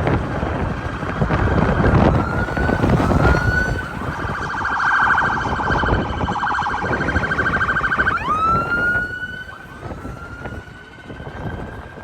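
Emergency vehicle siren on a city street. It gives a couple of short rising whoops, then a rapid warble for about four seconds, then a long wail that rises sharply about eight seconds in and keeps climbing slowly. Street traffic and wind noise run underneath.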